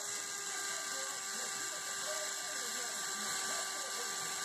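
Cordless drill running steadily at low speed, driving a screw through a tweeter's plastic backing plate into a door panel, with a continuous motor whine and a ratcheting gear sound.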